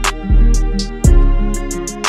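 Background music with a beat: deep bass notes, drum hits and steady pitched instrument notes.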